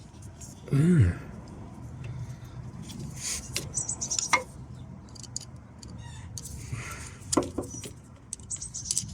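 Scattered small clicks and scrapes of a screwdriver working a Jubilee clip tight on a diesel heater fuel pump's hose, with a short grunt of effort about a second in.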